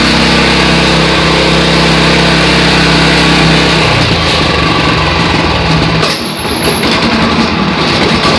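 Orec BC70 hammer knife mower's Mitsubishi 8-horsepower engine running steadily after being started. About four seconds in, the even engine note turns rougher and less even.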